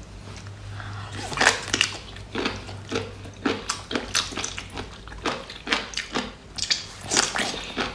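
Close-miked wet smacking and squelching, irregular at about two a second, from a rubbery grey piece of seafood being squeezed and bitten.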